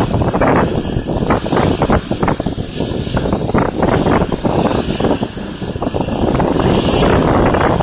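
Eurocopter EC135 twin-turbine helicopter running on the pad with its rotor turning, largely covered by heavy, gusty wind buffeting on the microphone.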